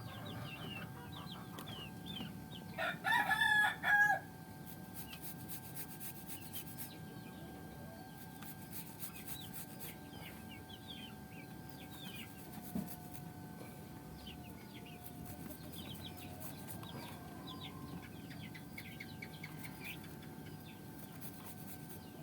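A rooster crows once about three seconds in, the loudest sound here, over chickens' scattered short chirps and clucks.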